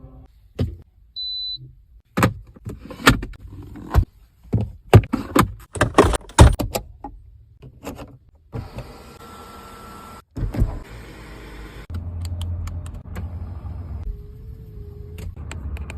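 Chery Tiggo 8 Pro's own sounds: a short high beep, then a quick run of sharp clicks and clunks from its latches and controls, followed by the steady whir of electric motors and a low hum near the end.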